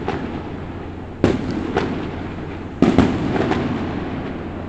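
Aerial fireworks bursting: a loud bang just over a second in, a smaller one soon after, then a double bang about three seconds in followed by a few lighter cracks, each bang trailing off in a long echo.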